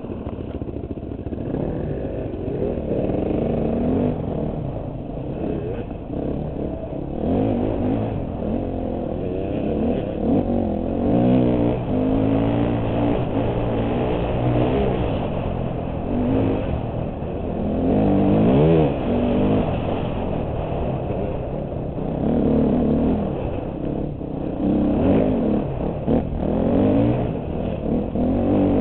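2008 KTM 250 XC-F dirt bike's single-cylinder four-stroke engine revving up and down as the throttle is opened and closed through the gears on a trail ride.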